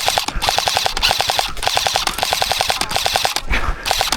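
Airsoft gun firing rapid full-auto bursts with short breaks between them: suppressing fire. A thump comes about three and a half seconds in.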